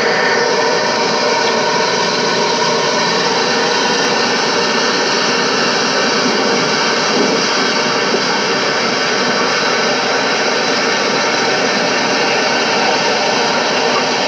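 Steady loud rushing noise.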